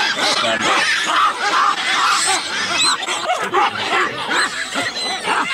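A troop of baboons barking and calling, many overlapping calls at once, alarm calls raised at a leopard walking close by.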